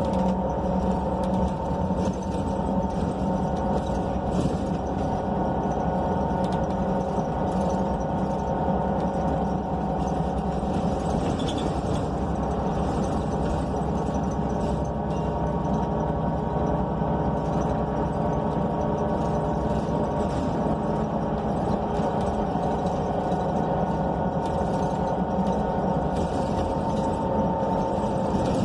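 Cummins Westport L9N natural-gas engine of a 2014 NABI 42 BRT transit bus running steadily, heard from inside the cabin, with a few constant tones held over a steady hum.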